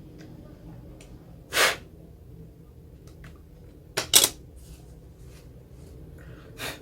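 Small clicks and handling noises of an iPod's front panel and casing being worked into place by hand, with two sharp clicks just after four seconds in as the loudest, and a short rushing noise about a second and a half in.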